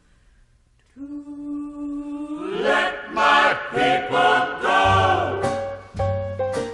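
Soundtrack music: after about a second of near silence a single held note starts, then a choir comes in singing, with deep bass notes joining about halfway through.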